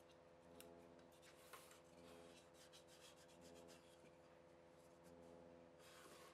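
Near silence: faint rubbing and scraping of wooden pieces handled on a slotted aluminium machine table, a few soft scrapes with a cluster near the end, over a low steady hum.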